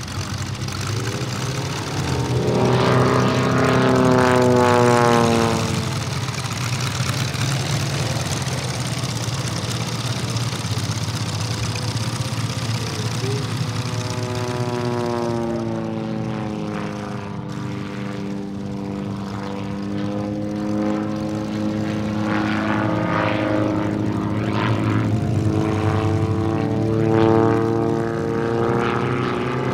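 Seven-cylinder 800 cc VM R7 radial engine of a giant-scale RC Stearman PT-17 biplane running in flight, with the propeller turning. The note is loudest about four seconds in and drops in pitch there. From about fifteen seconds in, the pitch falls again, then holds steady and rises slightly near the end.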